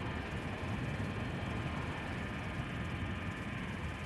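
Steady low rumble with an even hiss over it: outdoor airfield background noise.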